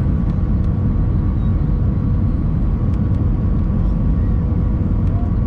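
Steady roar of jet engines and rushing air heard inside an airliner cabin on approach to landing with the flaps extended: a deep, even rumble with a faint steady hum above it.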